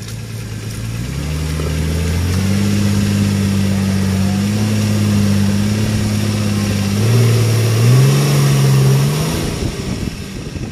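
Nissan Patrol's engine revving hard under load as the 4x4 climbs a muddy track: the revs rise in steps over the first couple of seconds, hold high, shift again near the end, then fall away.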